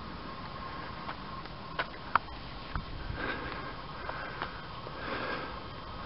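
A person breathing and sniffing close to the microphone over a steady hiss, with two sharp clicks about two seconds in.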